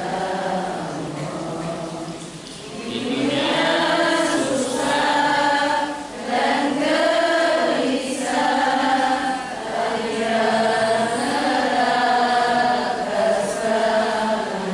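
A man chanting Qur'anic recitation in a melodic style, long ornamented notes sliding up and down between phrases. The voice is softer for the first couple of seconds, then full from about three seconds in, with brief breath pauses between phrases.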